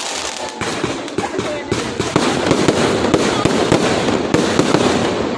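Fireworks going off in a dense, continuous crackle of many rapid sharp pops.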